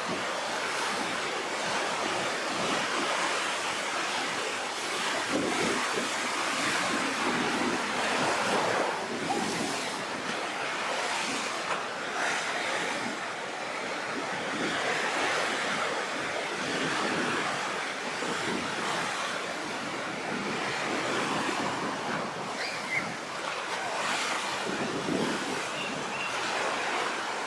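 Rough sea ahead of a typhoon: surf breaking and washing continuously, surging louder and easing off every few seconds, with wind.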